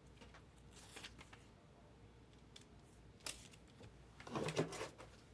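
Faint handling noises at a desk: a soft rustle about a second in, a single sharp click a little after three seconds, and a short low sound near the end.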